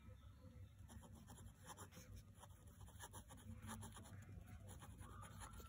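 Faint sound of a pen writing cursive on paper, a quick run of short, soft strokes.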